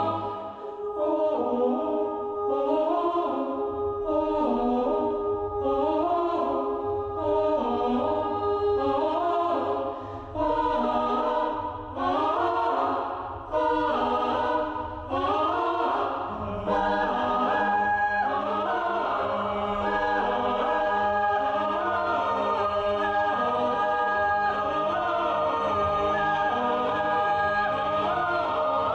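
Orchestral film score with a choir, built on short rising phrases repeated about every second and a half, growing fuller with a low bass part from about halfway in.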